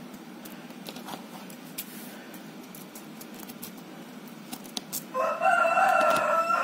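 A rooster crows once, a long crow of nearly two seconds starting about five seconds in, after a few seconds of faint clicks.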